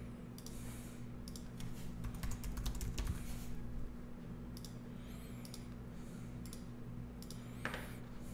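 Typing on a computer keyboard and clicking a mouse: scattered, light keystrokes and clicks over a low steady hum.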